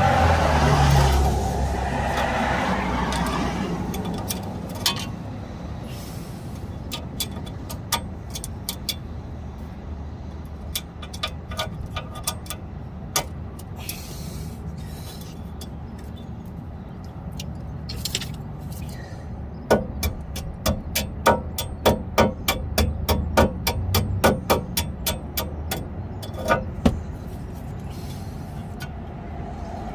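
Light metallic clicks and taps of tools bending a cotter pin over the castle nut of a tie rod end. They are scattered at first and come quickly, several a second, in the later part, over a low steady rumble.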